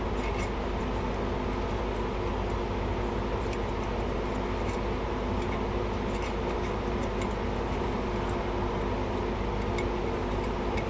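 Steady mechanical hum with faint scattered ticks from gloved hands wiping grease and grime off a brake caliper part with a paper towel.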